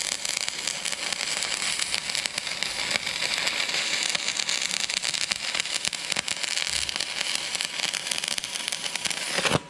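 Stick welding arc crackling steadily as a run of weld is laid with a filler rod into the V-cut crack in a Hitachi ZX120 excavator's steel dipper arm; the arc cuts off near the end.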